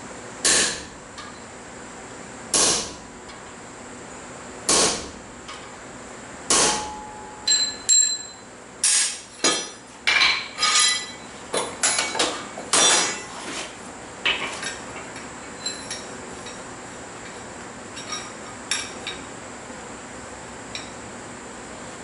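Blacksmith's hammer striking steel on an anvil, with a short metallic ring after each blow. Four heavy blows come about two seconds apart, then a quicker run of strikes, then lighter, sparser taps that thin out.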